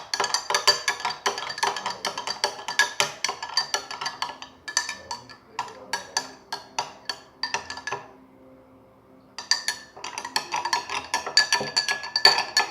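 Small spoon clinking rapidly against the sides of a cup while stirring salt into water, each stroke ringing briefly. The stirring stops for about a second and a half near eight seconds in, then resumes.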